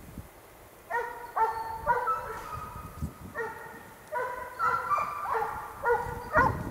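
Russian hounds giving tongue on a hare's trail: a run of short, ringing bay calls that starts about a second in and comes in broken bursts. The hounds are working a weak scent, driving a little and then checking.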